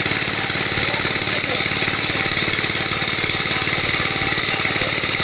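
Small engine-driven water pump running steadily while it pumps the pond dry.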